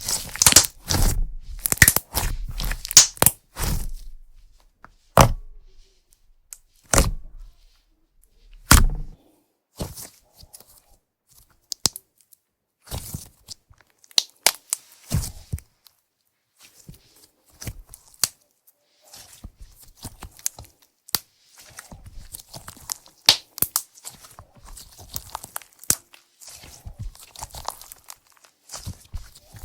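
Slime being squished and stretched by hand, giving off sharp crackles, pops and tearing sounds. The sounds come thick and loud at first, then thin out into scattered fainter clicks after about nine seconds.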